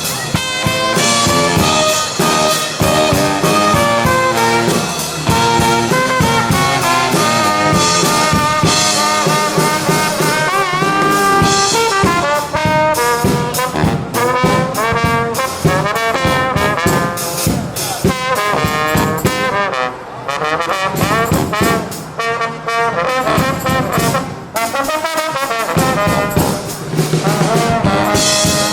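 Live brass band playing: trumpets and trombones carrying the tune over steady drum hits.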